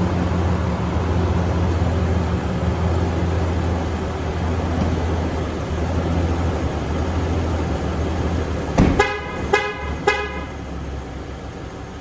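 2022 Ram 3500 pickup idling with a steady low hum. Near the end a door slams shut, followed at once by three loud, short horn honks about half a second apart: the truck's warning that the key fob has been carried out of the running vehicle.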